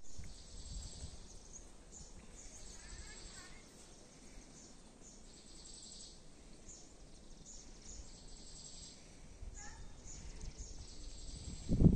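Open-air rural ambience: small birds chirping and calling with short high calls repeating every second or so, over a soft low rumble of wind on the microphone.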